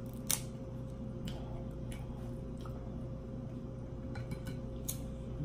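Scattered small clicks and snaps of crab-leg shell being picked apart by hand over a plate, the sharpest one about a third of a second in.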